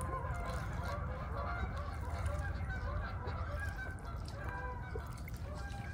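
Waterfowl calling: many short, overlapping calls, over a low steady rumble.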